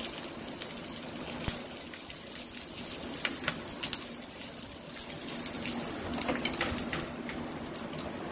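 Mustard seeds and curry leaves sizzling in hot oil in a pan while being stirred with a spatula, with scattered sharp pops and clicks: the tempering (tadka) being fried.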